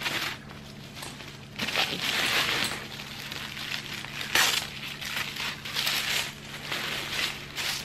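Tissue paper rustling and crinkling in irregular bursts as a handbag is unwrapped and the paper is pulled out of its box. The loudest crinkle comes about four and a half seconds in.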